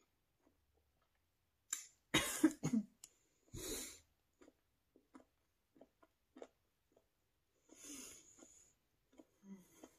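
A woman coughing in a short fit about two seconds in, then once more a second later, with a breathy burst near the end and small mouth clicks from chewing in between.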